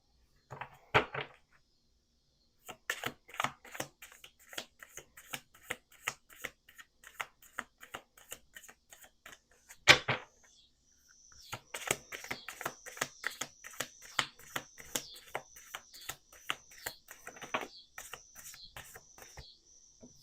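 A deck of Lenormand cards being shuffled by hand: a fast run of light card clicks and flutters, with a sharp knock about a second in and a louder one just before the middle. From a little past the middle, a short high chirp repeats about every two-thirds of a second beneath the shuffling.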